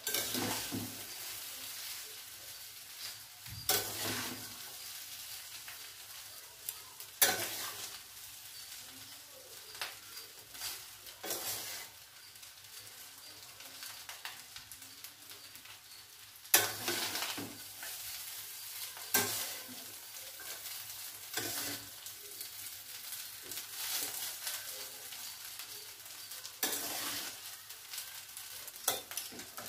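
Metal spatula scraping and knocking against a stainless steel kadai as vegetable pulao rice is stirred and turned, a sharp scrape every few seconds at an uneven pace. A soft steady sizzle from the pan runs underneath.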